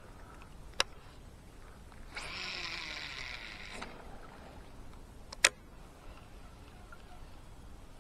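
A kayak being paddled: a soft swish of water lasting about a second and a half in the middle, between two sharp knocks, one near the start and a louder one a little past halfway.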